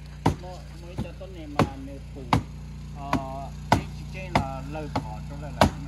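A sharp knock repeated at a steady pace, about nine times, roughly one every two-thirds of a second, over a steady low hum.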